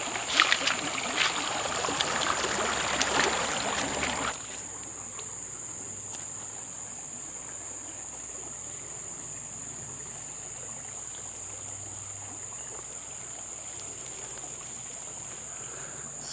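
Insects holding one steady high-pitched note over the trickle of a small creek. For the first four seconds, louder splashing and crunching of footsteps wading through the shallow creek; this stops abruptly, leaving only the water and the insects.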